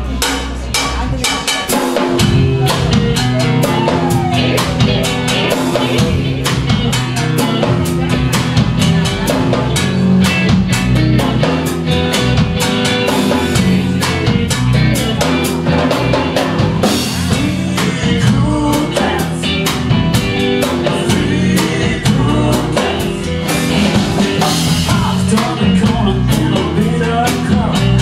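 Live band playing an up-tempo number: a drum kit keeping a steady beat with rimshots under electric guitars.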